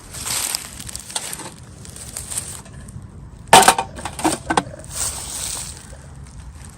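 Plastic packaging crinkling and rustling as miniature toys are unboxed. Halfway through comes a quick run of small hard pieces clicking and clinking onto a surface.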